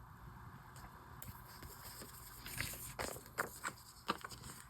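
Paper and sticker handling on a journal page: a soft rustle with about half a dozen light taps and clicks in the second half as a sticker is placed and pressed down.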